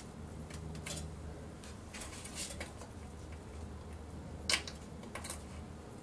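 Faint clicks and light rattles of a fan cable and its small plastic connector being handled and plugged onto a motherboard's CPU fan header, with one sharper click about four and a half seconds in.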